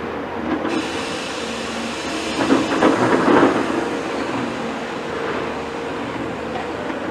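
Caterpillar 336 hydraulic excavator's diesel engine running with a steady hum while it empties a bucket of earth into a tipper truck's steel body. The load lands as a loud, roughly one-second rush of soil about two and a half seconds in.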